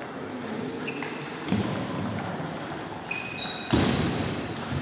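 Table tennis ball struck back and forth by rackets and bouncing on the table in a rally: a few sharp clicks with short high pings, and a louder, heavier knock about three-quarters of the way through.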